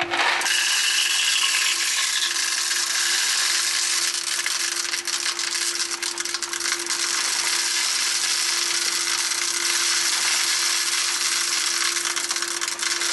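Dishwasher regeneration salt poured steadily into the water-softener salt reservoir: a continuous grainy hiss and rattle that starts abruptly.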